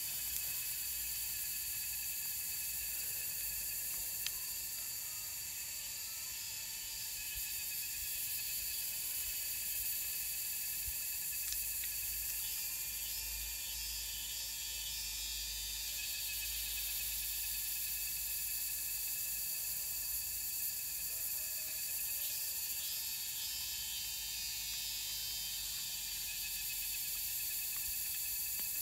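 A steady chorus of insects trilling and buzzing at several high pitches at once, with a few faint clicks.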